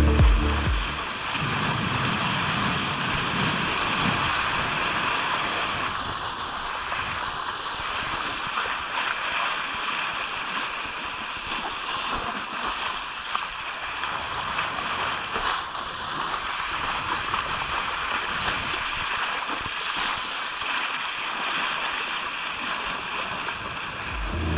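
Steady rush of wind on the camera microphone mixed with water hissing and splashing as a kiteboard rides fast across choppy sea.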